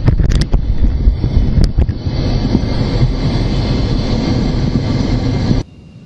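MiG-29 jet engine noise and heavy wind rumble on the microphone, heard from the cockpit while taxiing, with a few sharp clicks in the first two seconds. Near the end it cuts off suddenly to a much quieter, steady, distant noise.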